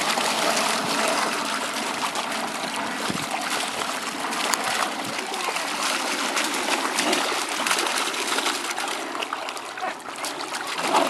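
Several puppies wading and scuffling in shallow water, splashing and sloshing it continuously.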